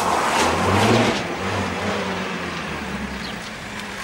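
A motor vehicle's engine running, loudest about a second in and then fading away gradually.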